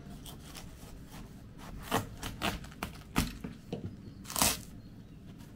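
Kitchen knife cutting through a watermelon half: a string of short, irregular cutting sounds, the longest and loudest about four and a half seconds in.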